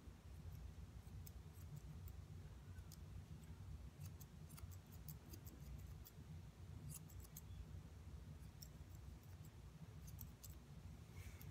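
Faint snips of hand grooming scissors trimming a poodle's curly leg hair: irregular clusters of quick, crisp clicks over a low steady hum.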